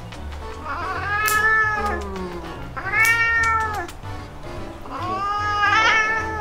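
A tabby-and-white domestic cat meowing three times, each a drawn-out meow of about a second that rises and falls in pitch, as it is held and its claws are clipped. Background music with a low beat runs underneath.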